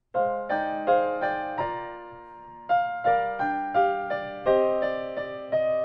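Piano playing slow chords with a melody on top, starting suddenly out of silence. Near the middle a chord is held and dies away before the playing picks up again.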